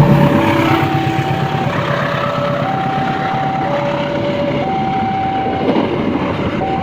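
A passing train's rumble and wheel noise, with an electronic level-crossing warning alarm alternating between two tones about once a second.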